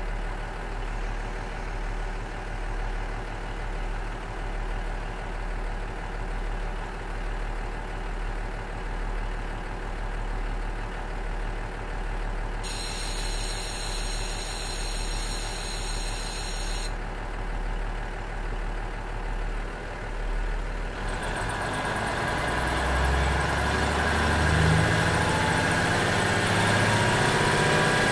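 Cummins DMF14HZ six-cylinder diesel engine of a KiHa 47 railcar idling steadily, with a steady hiss for about four seconds midway. About two-thirds of the way through, the engine is revved with no load, growing louder and rising in pitch.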